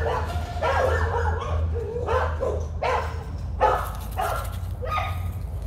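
American Pit Bull Terrier puppy giving repeated short yips and play barks as it plays with a ball.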